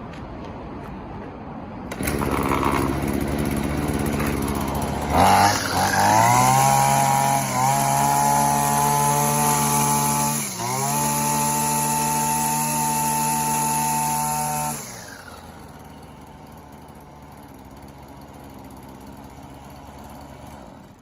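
Small engine of a Koshin EBC-26C walk-behind brush cutter starting about two seconds in. It revs up to high speed with a rising whine and dips once briefly before recovering. It then winds down and stops with a falling pitch, leaving quiet background noise.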